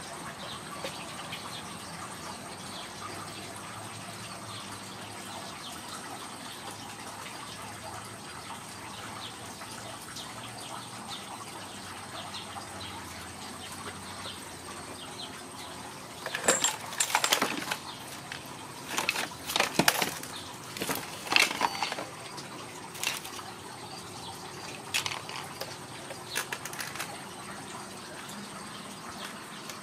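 Ragdoll kittens playing with toys: steady faint hiss, then a little past halfway a cluster of short scuffling and clattering knocks over several seconds, with a few scattered ones after.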